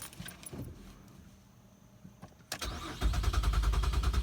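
A click, then the 2014 GMC Acadia's 3.6-litre V6 cranking on the starter from about three seconds in, a fast even chugging that never catches: the engine turns over but won't start, a fault that began after the battery cable was disconnected and reconnected.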